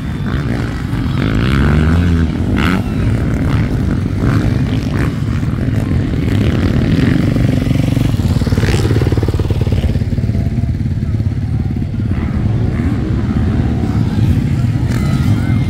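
Several motocross dirt bikes racing, their engines revving up and down as riders accelerate and shift, loudest as one bike passes close by a couple of seconds in.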